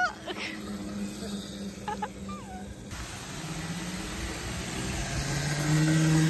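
Small electric ride-on scooter's motor humming as it rolls along, over a steady hiss; the hum rises slightly in pitch and grows louder near the end as the scooter speeds up.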